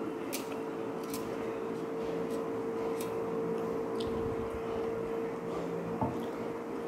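Eating sounds: scattered small clicks and squishes, with a thump about six seconds in, over a steady hum.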